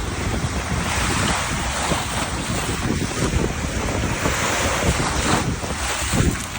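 Waves breaking and washing up a shore in a continuous surf, swelling and easing, with heavy wind buffeting the microphone as a low rumble.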